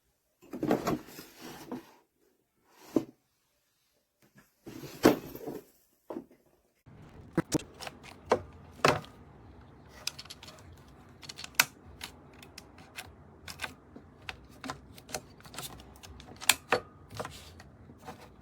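Handling of a cordless drill that will not run: a few knocks and rustles, then a long run of irregular sharp clicks over a faint steady hum.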